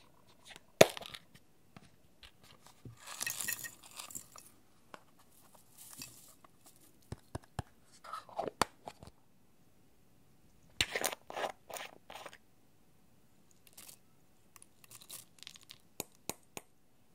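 Hard plastic trinket cases clicking and snapping as they are handled and opened, with a sharp click about a second in, and short gritty rustles of crumbled eyeshadow powder and glitter being tipped out and shifted in plastic trays.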